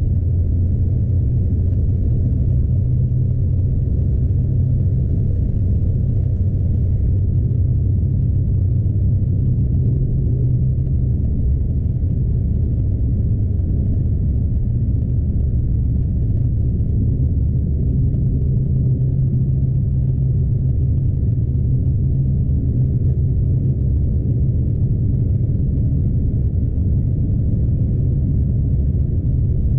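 Steady low drone of a Scania truck's diesel engine and running gear, heard from inside the cab while driving along.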